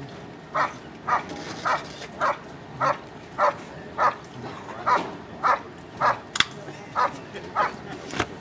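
German shepherd barking steadily at the helper while guarding him, about two barks a second in an even rhythm.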